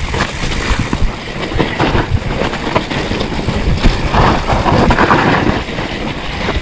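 Mountain bike rolling down a bumpy, muddy dirt trail: tyres on dirt, the bike rattling and knocking over bumps, with wind buffeting the microphone.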